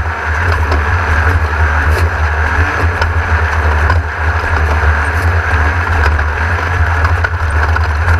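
Class 1600 off-road race buggy's air-cooled 1600 cc VW engine running hard at a steady pace, heard onboard as a loud, even low drone mixed with the rattle and rush of the car over the course.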